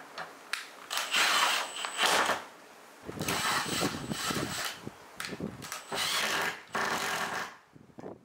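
Cordless screwdriver running in short bursts, driving the screws that fasten a bar handle to a wooden door panel from underneath.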